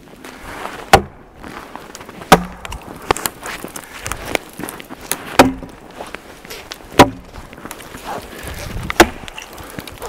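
A dry deadwood pole being beaten against a tree trunk to break it into firewood lengths: five loud, sharp wooden knocks spaced about one and a half to two seconds apart, with lighter cracks and snaps of wood between them.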